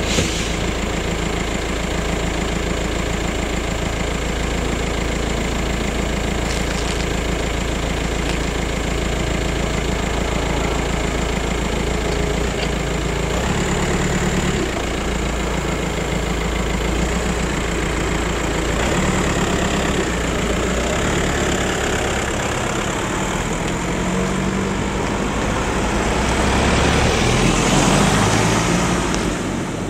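Car engines idling steadily. Near the end a car pulls away and accelerates past, getting louder and then fading.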